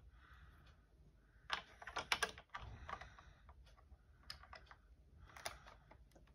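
Faint, irregular clicks and taps of plastic LEGO bricks being handled on a brick-built marble maze, bunched together from about a second and a half to three seconds in.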